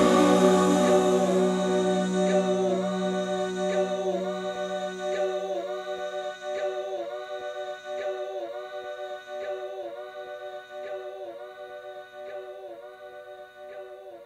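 Music fading out: one sustained chord that wavers slightly in pitch at regular intervals, its low bass note dropping away about halfway through as the whole sound slowly dies down.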